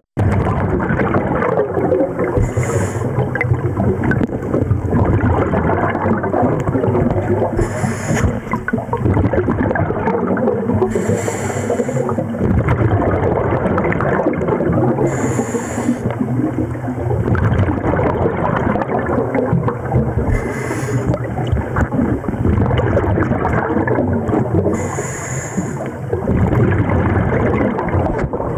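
Scuba diver breathing through a regulator underwater: a hiss comes about six times, roughly every four to five seconds, over steady bubbling, rumbling water noise.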